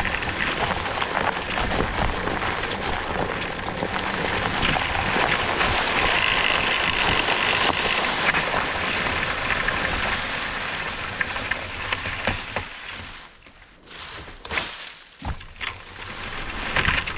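Offroad wheelchair's tyres rolling over a rough forest track: a steady crunching, crackling noise that falls away for a couple of seconds in the second half, with a few knocks, then picks up again near the end.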